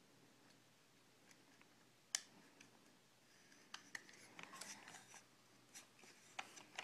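Faint small clicks and light scraping of an AR rifle's magazine release parts being worked by hand as the release button is fitted onto its threaded catch, with one sharper click about two seconds in and a cluster of small clicks and scrapes after the middle.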